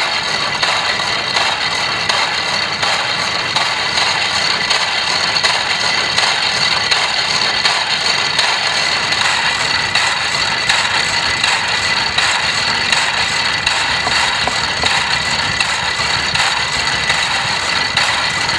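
Old electric generator belt-driven by a Lanz Locomobile steam engine, running steadily: an unbroken mechanical running noise with a faint high steady tone.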